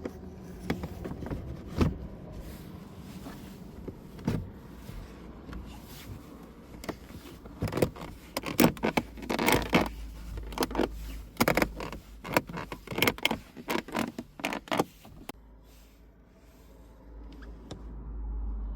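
Short bursts of whirring from a car's electric mirror motor, stopping and starting as the mirror switch is pressed, with clicks in between. The bursts come thickest in the middle and die away near the end.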